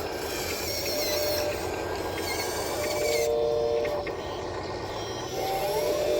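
Motors of a miniature model excavator whining as it works. Steady whines start and stop several times, with a rising whine near the end.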